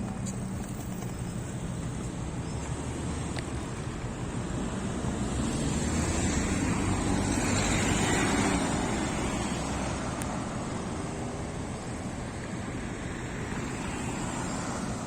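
A vehicle passing by: a steady rushing noise grows louder to a peak about halfway through, then fades away.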